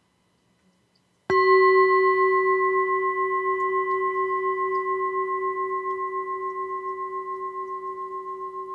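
Singing bowl struck once about a second in, then ringing with a low tone and a few higher overtones that slowly fade with a pulsing wobble.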